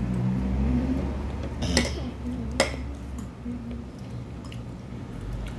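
Metal spoon clinking against a ceramic bowl while eating, two sharp clicks a little under a second apart near the middle, over a steady low hum.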